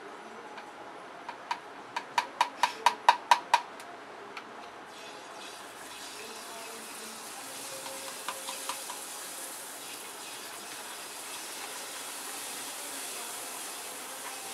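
Boondi frying: drops of besan batter falling through a perforated container into hot oil in a kadhai and sizzling, a steady hiss from about five seconds in. Before it, a quick run of about ten sharp, ringing clicks, growing louder.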